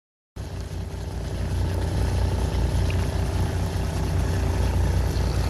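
Fishing boat's engine running with a steady low drone, growing louder over the first couple of seconds and then holding. It cuts in abruptly from dead silence just after the start.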